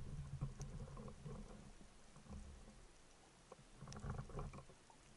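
Faint, muffled underwater sound picked up by a camera in its housing: low, irregular rumbles of water moving against the housing, strongest near the start and again about four seconds in, with a few scattered sharp clicks.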